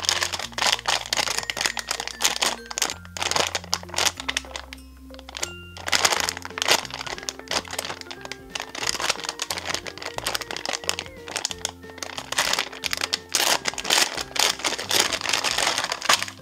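Plastic wrapping crinkling and crackling as it is handled, in long stretches with a short lull near the middle, over background music with a steady bass line.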